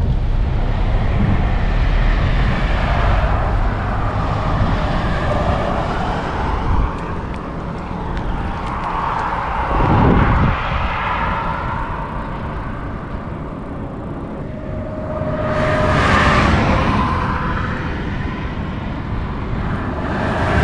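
Wind rumbling on the microphone beside a highway, with road vehicles swelling past twice, briefly about halfway through and again for a few seconds near the end.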